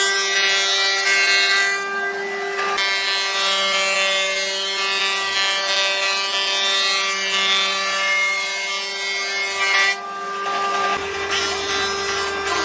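Electric power tool running at a steady speed while cutting and shaping wood, with a steady motor whine over the grinding and rubbing of the wood; the sound changes abruptly a few times.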